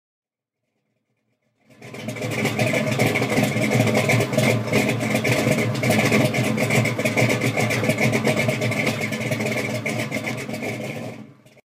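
A car engine running loudly with a rough, rapid pulsing, starting suddenly about two seconds in and cutting off near the end.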